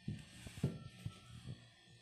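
A gloved hand mixing raw minced meat with chopped parsley and tomato in a bowl: a handful of soft, irregular squelching strokes, over faint background music.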